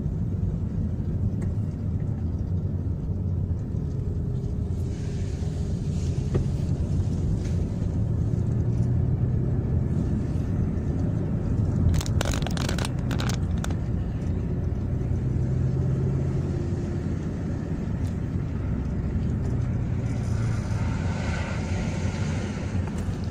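Car engine and road noise heard from inside the cabin while driving, the engine hum shifting up and down with speed. A few sharp clicks about twelve seconds in.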